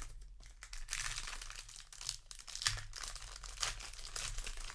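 Crinkling and tearing of a Magic: The Gathering booster pack's foil wrapper as it is handled and torn open, in a series of irregular rustles.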